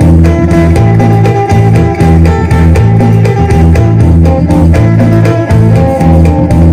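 Electric guitar played in the Isan phin sing style: a fast picked melody over a steady low drone.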